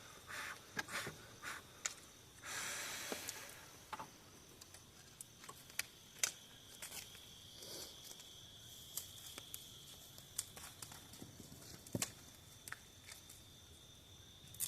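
Scattered crackles and snaps of burning kindling in a small bonfire being lit, with a brief hiss about two and a half seconds in. A steady high insect trill runs underneath and grows stronger from about four seconds in.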